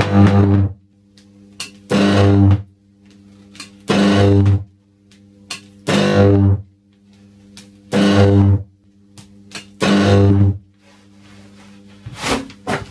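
High-voltage arc discharges from a power supply of eight microwave oven transformers with resonance capacitors, seven on each side, buzzing loudly in six bursts of under a second, about two seconds apart. A fainter steady hum runs between the bursts.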